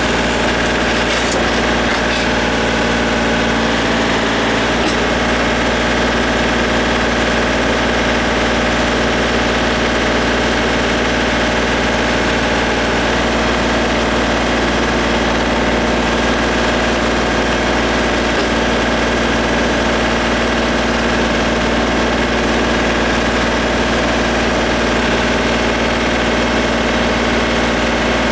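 John Deere tractor's diesel engine running steadily at a constant speed.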